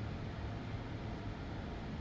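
Steady background hiss with a low hum underneath; no distinct event.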